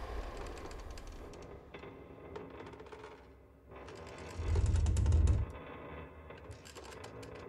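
Electronic soundtrack of dense, fine clicking and ticking, with one deep low swell lasting about a second near the middle.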